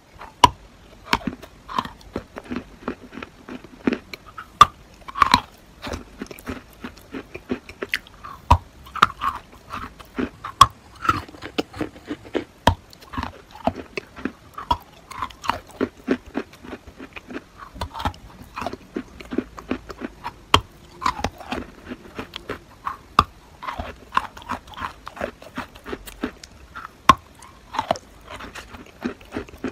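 A stick of school chalk being bitten and chewed close to the microphone: a steady run of sharp, irregular crunches and snaps.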